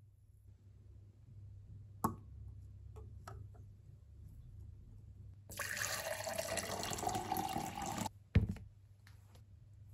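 Water poured in a steady stream into a glass for about two and a half seconds, splashing, with a tone that rises as the glass fills. A sharp click comes about two seconds in, and a heavy thump just after the pour stops.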